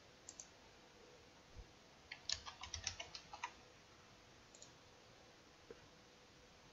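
Faint clicks of a computer keyboard and mouse: a couple of single clicks, then a quick run of about ten key presses typing a short word, then two more single clicks.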